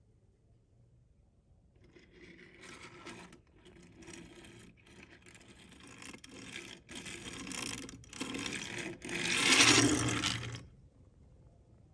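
Small toy pickup truck pushed across paper and a wooden table, its wheels running with a whirring, scraping sound in a string of pushes with short breaks between them. It grows louder, is loudest just before it stops abruptly.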